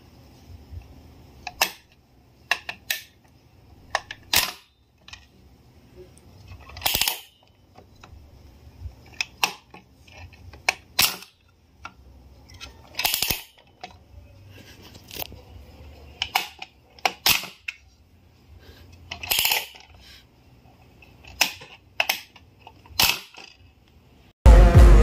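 Hard plastic clicks and clacks from a skeleton-head bite-finger toy as its hinged jaw and spring-loaded teeth are worked, one sharp clack every second or two. Music starts right at the end.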